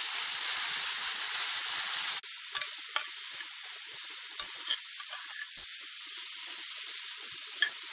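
Venison tenderloin, mushrooms and shallots frying in butter in a pan over a campfire, hissing loudly as a dollop of snow melts into the hot pan. About two seconds in, the sound drops suddenly to a quieter sizzle with light clicks of a utensil stirring the pan.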